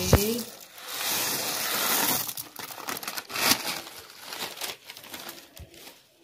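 Black sunflower seeds poured from a plastic bag onto a plate of mixed nuts. After a sharp knock at the start, the bag crinkles and the seeds rustle steadily for about two seconds, then a patter of scattered ticks dies away as the last seeds fall and settle.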